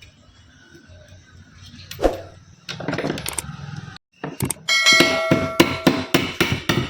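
Metal being struck repeatedly, about five sharp blows a second from about halfway through, each leaving a short ringing tone, after a few scattered knocks.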